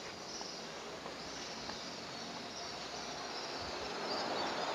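Insects chirping steadily over a hiss of outdoor background noise, growing a little louder near the end.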